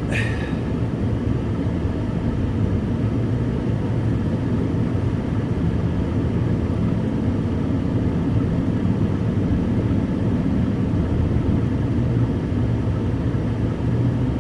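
Ventrac compact tractor's engine running at a steady pitch with a constant low hum while the machine backs out slowly. A brief high scraping sound comes right at the start.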